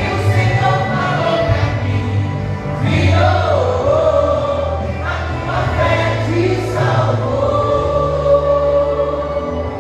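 Gospel vocal group singing together over instrumental backing with held bass notes.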